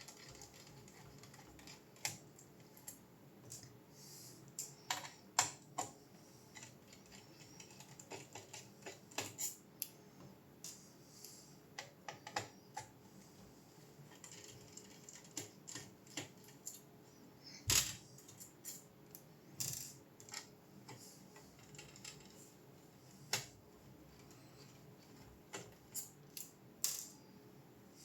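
Irregular light clicks, taps and small rattles of hard objects being handled, with a sharper knock about eighteen seconds in.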